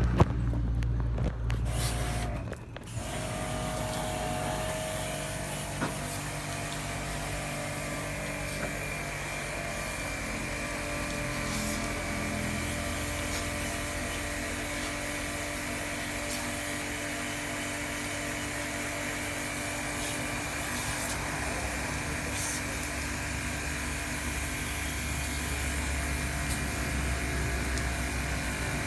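A motor-driven machine running steadily, with a constant high whine over a mechanical hum; the sound is more uneven in the first few seconds, then settles.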